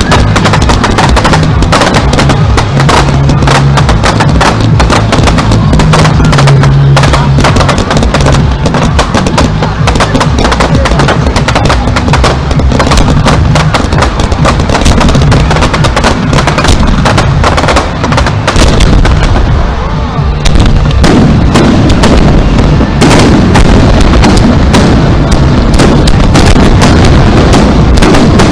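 Aerial fireworks shells firing and bursting in a dense, continuous barrage of bangs and crackling, with a brief lull about twenty seconds in.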